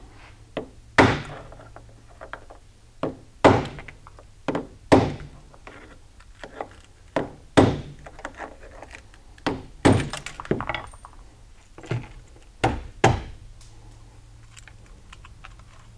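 Ball-peen hammer striking and breaking the glass lens out of a Ford sport mirror's lens assembly: about fifteen sharp knocks at irregular intervals, with glass cracking. The glass is broken out to reach the worn ball-and-socket joint behind it.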